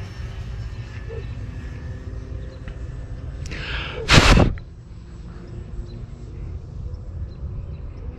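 Low, steady rumble of wind on the microphone with a faint steady hum. About four seconds in there is one sudden, loud burst of noise lasting about half a second.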